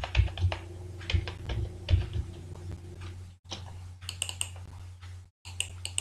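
Typing on a computer keyboard: a quick run of keystroke clicks in the first two seconds, then a few lighter clicks later, over a steady low electrical hum.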